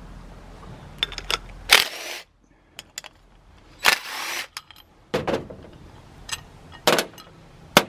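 Metal clinks, knocks and scrapes of a Leslie RS5T locomotive horn's bell and power chamber being unbolted and taken apart by hand. There are several sharp clicks and two short rasping scrapes, about two seconds and four seconds in.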